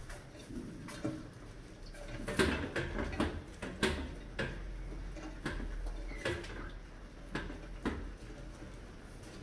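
Mice scrabbling over a glass-tank trap and the drink cans on its rod: irregular clicks, taps and light knocks, busiest from about two to four and a half seconds in.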